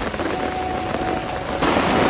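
Rain falling in a steady, even patter. About one and a half seconds in it suddenly becomes louder and brighter.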